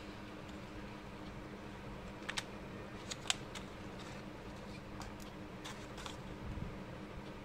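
A plastic tray of watercolor paint tubes and its cardboard box being handled: a scatter of light clicks and taps, the sharpest about three seconds in, over a steady low hum.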